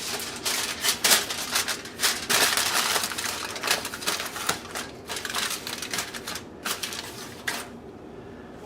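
Aluminium foil crinkling and crackling as it is pressed over a pan of potatoes to cover it: a rapid run of sharp crackles that thins out and stops near the end.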